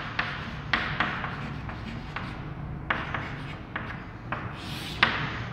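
Chalk writing on a chalkboard: a run of short scratching strokes and light taps at an uneven pace.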